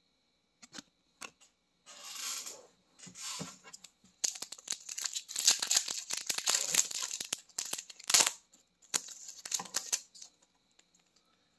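A hockey card pack's wrapper being torn open and crinkled by hand: a few light clicks and short rustles at first, then about four seconds of dense crinkling and tearing from around four seconds in, and a last short burst of rustling near the end.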